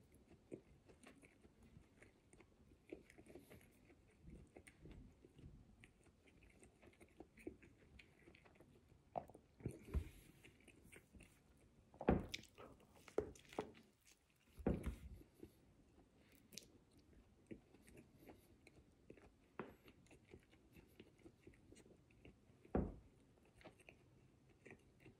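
A person chewing and biting into a ham and Swiss sandwich on soft homemade bread: a run of faint wet chewing sounds, with louder bites and mouth sounds clustered around the middle and one more near the end.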